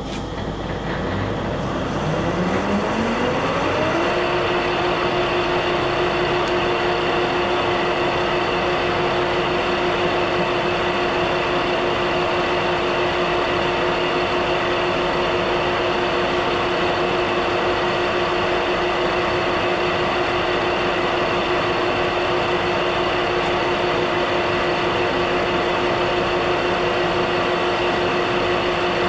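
Metal-turning lathe starting up, its whine rising in pitch over the first few seconds, then running steadily at speed while a light finishing cut is taken on a steel spindle.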